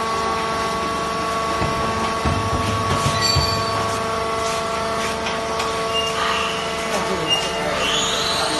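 Fiber baler machinery running with a steady whine of several held tones, and a few knocks and clanks about two to three and a half seconds in.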